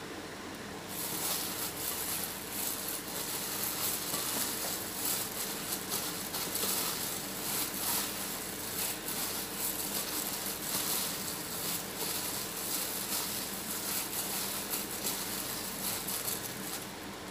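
Plastic-gloved hand squishing and kneading a mashed potato and egg mixture in a glass bowl, the glove crinkling with a steady crackle that starts about a second in. A faint steady hum sits underneath.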